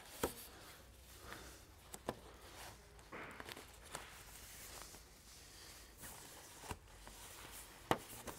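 Faint handling noise as plastic toggles on a tent liner are pushed through sewn fabric loops: irregular light clicks over soft rustling of the fabric, with the sharpest click about a quarter second in and another near the end.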